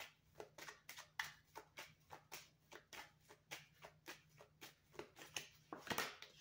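A deck of oracle cards shuffled overhand by hand: faint, quick card flicks at about three or four a second, a little louder near the end.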